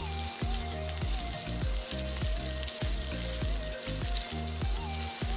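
Finely chopped garlic and ginger sizzling steadily in hot sunflower oil as they are stirred with a silicone spatula in a steel pan, the sauté stage of making a chutney. Soft background music with a steady beat plays underneath.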